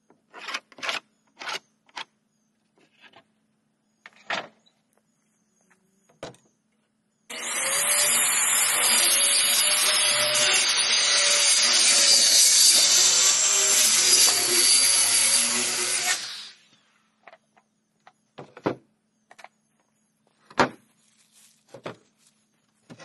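Corded circular saw cutting through weathered wooden boards in one continuous cut of about nine seconds, its motor pitch wavering under load, starting and stopping abruptly. Short scattered knocks and clicks come before and after the cut.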